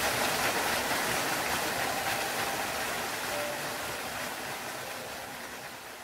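Steady rush of a waterfall, a dense even hiss of falling water, fading out gradually toward the end.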